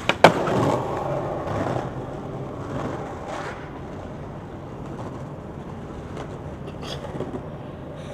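A skateboard coming down onto stone pavement out of a flip trick, with two sharp clacks close together, then its urethane wheels rolling for a moment and fading. After that a steady low hum of city traffic.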